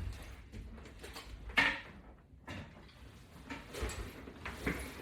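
Handling noises: a few light knocks and rustles, the sharpest about one and a half seconds in, with smaller ones near the end.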